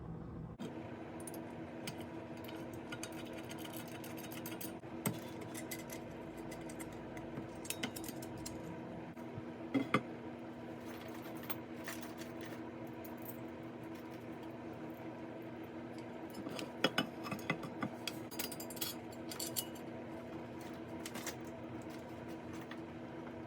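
Small metal parts and hand tools clinking and rattling as hardware is handled and fastened, in scattered clicks with two busier clusters, about ten seconds in and again around seventeen to nineteen seconds. A steady low hum runs underneath.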